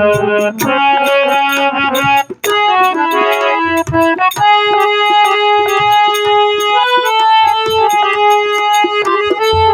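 Instrumental interlude of a Hindi film-style song: an electronic keyboard plays a melody of held notes over light percussion, with a brief break about two seconds in.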